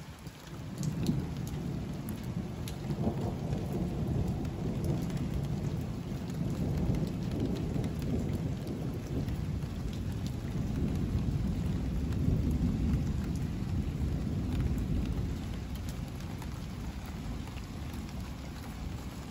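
Long rolling rumble of thunder that starts suddenly, swells and rolls on for many seconds, then slowly dies away near the end, over steady rain pattering.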